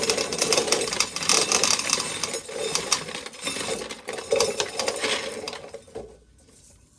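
Corn sheller stripping a thick ear of corn, a dense rattling clatter of kernels breaking off and pouring out, which stops about six seconds in.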